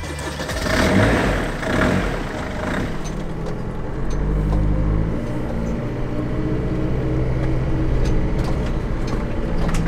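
Motorhome engine running steadily with a low drone as the van drives along, after a noisier, rougher first few seconds.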